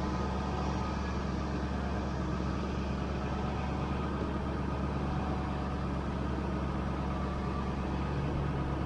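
Ford F350 pickup truck engine running steadily, a constant low hum with a few steady tones above it.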